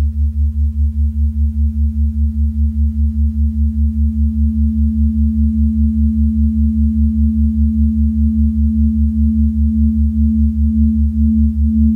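Electronic acousmatic music: a deep drone pulsing about four times a second under a steady pure hum tone, which begins to throb near the end.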